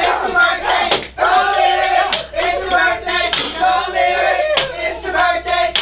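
Several young people shouting and chanting together in high, overlapping voices, with a few sharp knocks among them.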